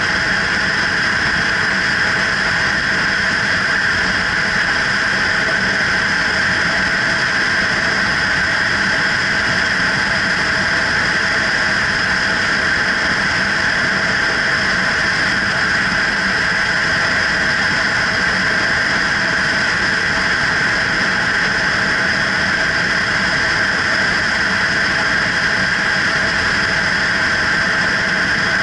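Kawasaki Ninja 300 parallel-twin engine running at a steady cruising speed, with an even rush of air and road noise over it. The engine note holds the same pitch throughout, with no revving or gear changes.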